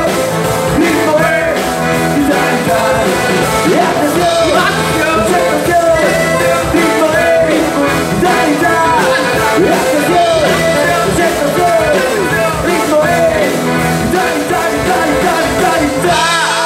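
Live band playing an upbeat rock number on guitars, accordion and drum kit, in an instrumental break with a steady driving beat and melodic lines that bend in pitch.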